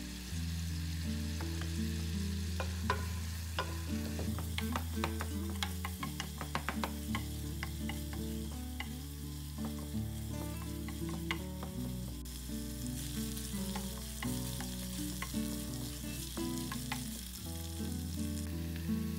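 Ground veal and onion sizzling in oil in a nonstick pot while a wooden spatula stirs through it, with a run of spatula clicks and scrapes against the pan in the middle.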